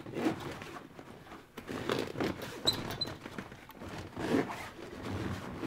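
Fabric spray cover being pushed by hand into the gap between a folding kayak's cockpit coaming and its deck: irregular rubbing and scraping of cloth.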